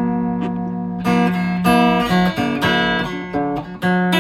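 1960s Silvertone 1446 hollow-body electric guitar played through an amplifier during a tone test: chords strummed about once a second and left to ring, over a steady low hum.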